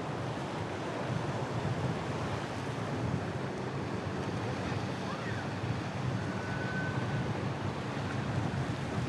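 Wind buffeting the microphone over breaking surf, with a steady low rumble of boat engines running through a rough inlet.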